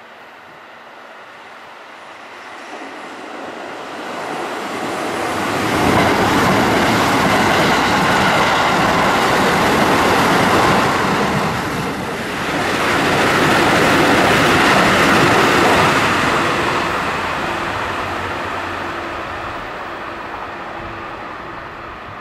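Keikyu 1000-series electric train running past on the tracks, a dense rumble of wheels on rail. It grows louder over the first six seconds, stays loud for about ten seconds with a brief dip midway, then fades away.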